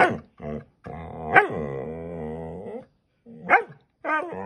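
Scottish terrier barking in short sharp yaps, with one long wavering growl-like grumble of about two seconds in the middle and a short warbling grumble near the end.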